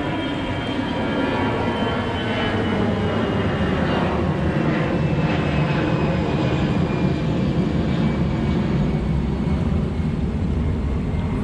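Steady loud rush of fast-moving water below a low river dam, with a faint high whine that falls slowly in pitch throughout.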